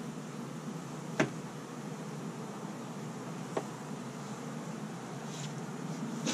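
Honeybees buzzing around an open hive in a steady hum. There are two sharp clicks, a loud one about a second in and a softer one a couple of seconds later.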